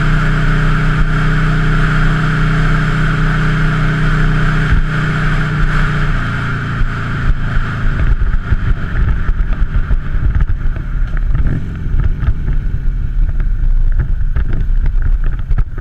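A 2003 Buell Lightning XB9's air-cooled V-twin running under way, holding a steady engine note. About six seconds in, the steady note gives way to an uneven low rumble.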